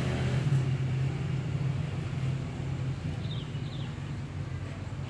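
A steady low hum from a running engine or motor, easing off slightly. Two faint, short high chirps about three seconds in.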